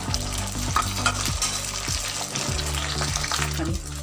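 Beaten eggs frying in oil in a flat black pan, giving a steady sizzle.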